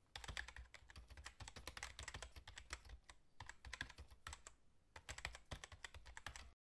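Faint computer-keyboard typing sound effect: rapid clicking in three runs with short pauses between them, cutting off about six and a half seconds in.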